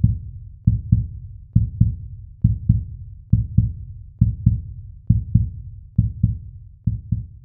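Heartbeat sound: low double thumps, lub-dub, repeating steadily about once every 0.9 seconds.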